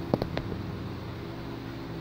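Steady low hum filling the room, with a few quick clicks in the first half second.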